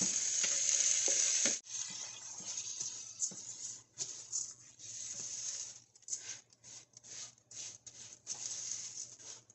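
Washed rice sizzling as it is tipped into a hot pan of ghee and minced meat; the loud hiss cuts off sharply about a second and a half in. Then a silicone spatula stirring the rice, with sizzling and rustling in short bursts at each stroke.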